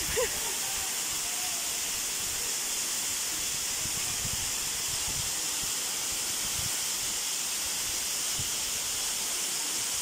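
Thaandi waterfall's falling water: a steady rushing hiss that stays even throughout.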